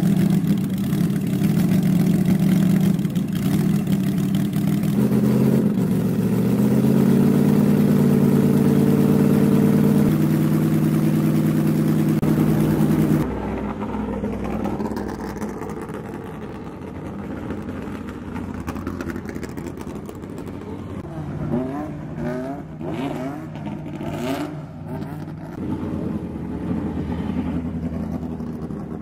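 A vintage front-engined racing car's engine running loudly at a fast idle, revved up about five seconds in, held higher, then dropped back a little. After a sudden cut, a quieter racing engine idles with short throttle blips as a 1960s rear-engined single-seater rolls slowly down the paddock lane.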